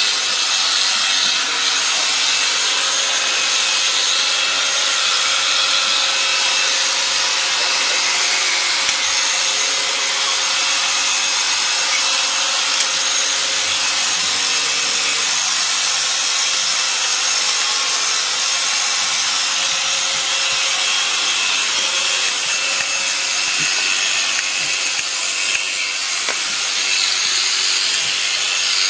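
A sheep being shorn: shears cutting through its thick fleece with a steady, scratchy rasping.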